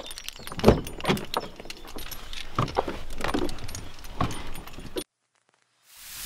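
Handling noises of getting into a Skoda car: the door handle and door clicking and knocking, with keys jangling; the loudest knock comes under a second in. The sound cuts off suddenly about five seconds in, and a hiss rises near the end.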